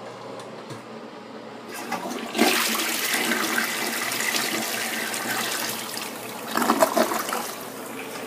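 A 2007 Crane Plumbing Elite tank toilet flushing: a click of the handle about two seconds in, then a loud rush of water swirling down the bowl, with a louder, choppier burst near the end before the flow drops away.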